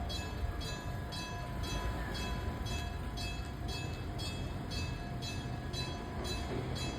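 Electric bell of an Enoden level crossing ringing in a steady rhythm of about two strokes a second, over the low rumble of a train that grows near the end.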